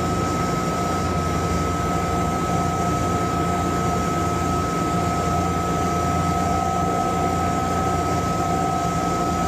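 Boiler burner firing at high fire: a steady roar from the flame and its combustion-air blower, with a constant low hum and two steady whining tones over it.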